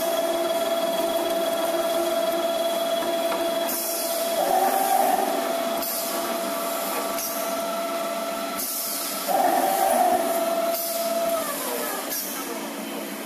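Hydraulic circular cold saw for metal bar running with a steady motor whine, growing louder twice as the blade cuts, with spells of hiss. Near the end the whine stops and the pitch falls away as the blade winds down.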